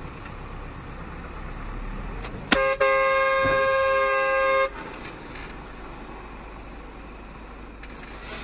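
A sharp bang, then a vehicle horn blaring steadily for about two seconds. Steady road and engine noise runs underneath.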